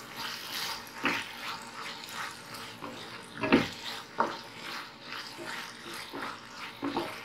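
Wooden spatula stirring and scraping thick gravy around a nonstick frying pan, with a few sharper scrapes over a steady soft sizzle.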